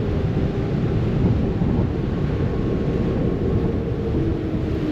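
Passenger ferry under way: a steady low engine rumble mixed with wind buffeting the microphone and the rush of water churned up in the wake.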